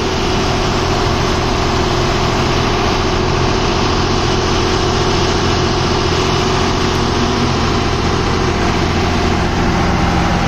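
Engine of a 2013-model truck running steadily, a continuous drone with no change in speed.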